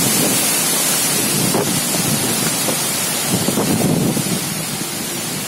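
Cyclone-force wind gusting through palm trees, with heavy rain hissing and wind buffeting the microphone: a loud, continuous rush that surges and eases slightly.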